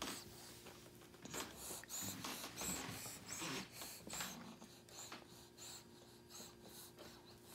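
A baby snuffling and breathing noisily through the nose while eating, in short repeated breaths, with a few soft clicks in between.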